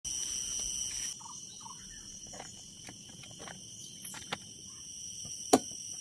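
Steady high-pitched chirring of an insect chorus, with a few faint scattered clicks and one sharp click about five and a half seconds in.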